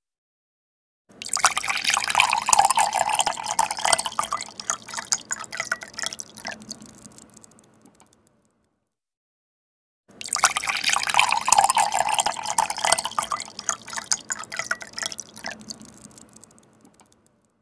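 Water poured into a glass, twice: each pour starts suddenly at full flow and tapers off over about seven seconds, with a short silence between them.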